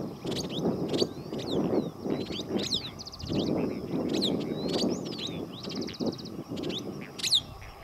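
Wind gusting on the microphone, over birds calling in open grassland: many short, sharp falling chirps and two brief rapid trills.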